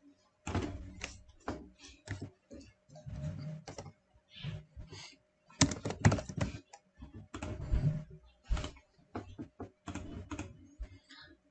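Typing on a computer keyboard: a run of irregular keystrokes.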